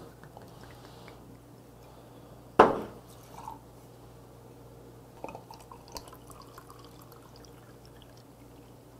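Beer poured from a glass bottle into a small glass: faint trickling and dripping of liquid. One sharp knock stands out about two and a half seconds in.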